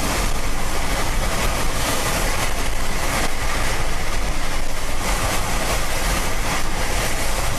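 Strong storm wind on the microphone: a loud, steady rushing noise with a deep rumble underneath.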